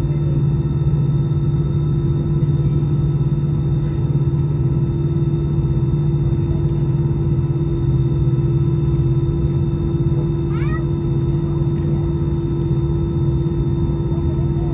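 Airbus A320 cabin drone from inside the cabin while taxiing, engines at idle: a steady low hum with several constant tones over it. About ten and a half seconds in, a brief high-pitched rising sound cuts over the drone.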